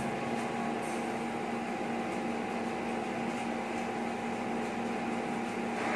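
A steady hum with a faint hiss and no music, unchanging throughout.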